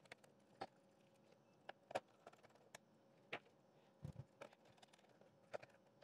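Faint, scattered clicks and taps from a hand screwdriver turning screws into the robot vacuum's main board and plastic chassis, with a low knock about four seconds in.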